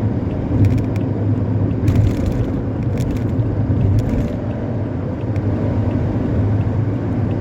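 Steady low rumble of a coach bus engine and its 'knalpot ngorok', a growling modified exhaust, running at highway speed, with a few brief clicks.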